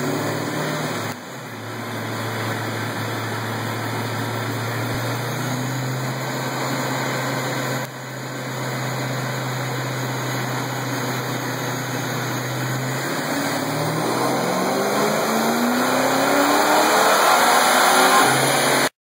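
Supercharged Ford 5.0 V8 of a 1992 Mustang LX with a Vortech V1 centrifugal blower, running on a chassis dyno. The engine holds a steady note, then about 13 seconds in it begins a dyno pull, the pitch rising steadily and the sound growing louder until it cuts off suddenly near the end.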